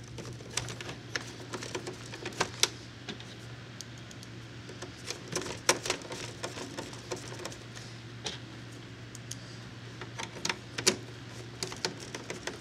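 Screwdriver driving a small screw into a bill validator's metal bezel plate, fastening the grounding wire: irregular sharp metal clicks and ticks as the tip works the screw head, over a steady low hum.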